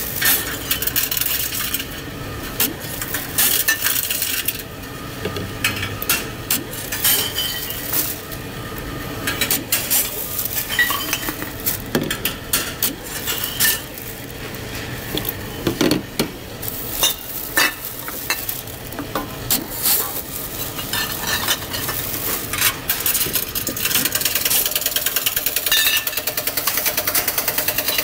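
Reverse vending machine for bottles and cans running, with bottles and cans clattering and clinking through its intake mechanism. Near the end the machine settles into a fast, even rattle.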